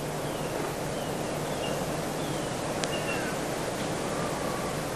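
Faint, short high-pitched squeaks from a small animal, about a dozen, several falling in pitch, over a steady hiss and a low hum.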